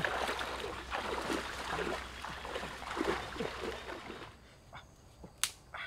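Water splashing and sloshing as a person wades through knee-deep floodwater, pushing a metal basin. After about four seconds it drops much quieter, and a single sharp click comes near the end.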